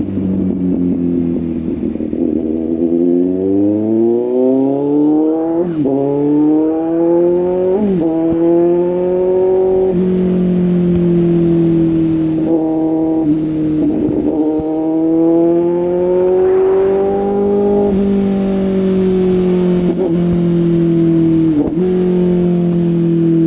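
Kawasaki Z800 inline-four motorcycle engine and exhaust under way: revs climb through the gears with several quick shifts, then the bike cruises at fairly steady revs with gentle throttle rises and falls.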